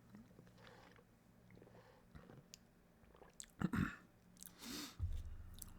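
A man chewing food close to the microphone: faint wet mouth clicks and bites, with a sharper bite a little after three and a half seconds and a breath near the end.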